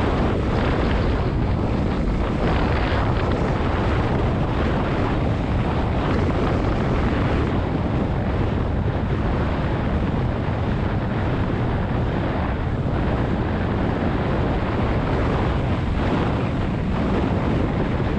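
Wind buffeting the microphone in the open back of a moving pickup taxi, a steady loud rumble with the truck's road noise underneath.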